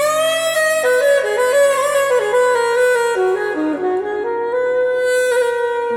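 Saxophone playing a solo melody line over soft backing music: it comes in sharply, wanders down in steps, then holds one long note near the end. The music is played back through hi-fi loudspeakers and picked up by microphones.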